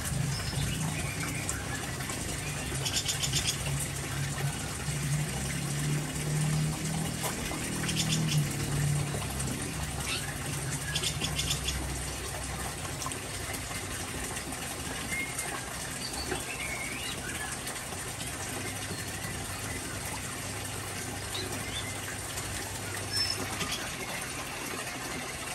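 Small aviary songbirds chirping, with three short rapid high trills a few seconds apart, over a steady low hum and an even hiss.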